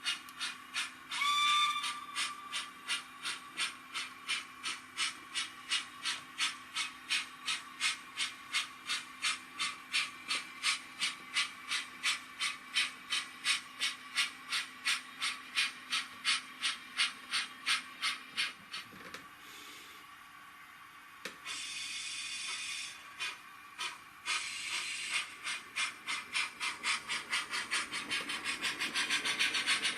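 Sound-fitted OO gauge model of the steam locomotive Lion playing steam-engine chuffs through its onboard speaker, about two and a half a second, with a short whistle toot about a second in. The chuffing stops a little past halfway, a short hiss of steam follows, then the chuffs start again and quicken near the end.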